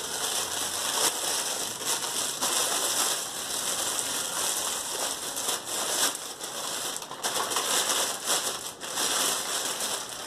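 Clear plastic packaging crinkling and crackling steadily as it is handled and pulled open, with many small crackles throughout.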